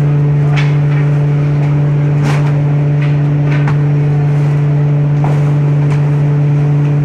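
Loud, steady hum of veneer-dryer machinery in a plywood mill, one low tone with higher overtones. Over it come a handful of short rustles as thin wood veneer sheets are lifted and slid onto the dryer shelves.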